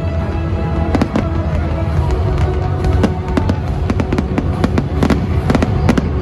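Fireworks going off in a dense barrage: many sharp bangs and cracks at irregular intervals over a continuous low rumble of distant explosions.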